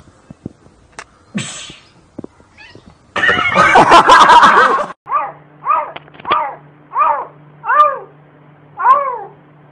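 A cat calling: a loud harsh noisy outburst of nearly two seconds, then a run of about six short meows, each rising then falling in pitch, a little under a second apart.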